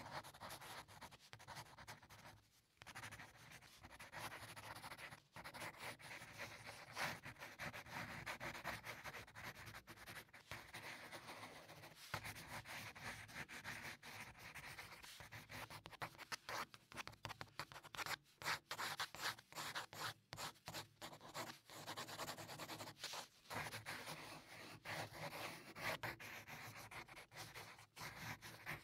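Mechanical pencil lead scratching on paper as it sketches circles and straight guidelines, in runs of strokes broken by short pauses.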